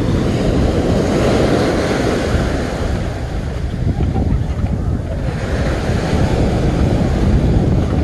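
Small ocean waves breaking and washing up the sand, swelling and easing, with wind buffeting the microphone as a heavy rumble underneath.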